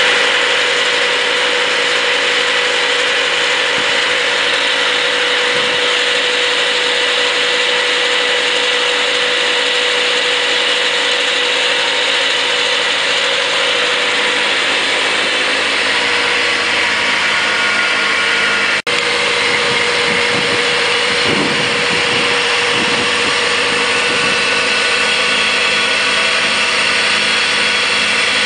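Kubota B3030 compact tractor running with its front-mounted snowblower engaged and throwing snow: a loud, steady mechanical drone with a constant whine. It drops out for an instant about two-thirds through, then carries on.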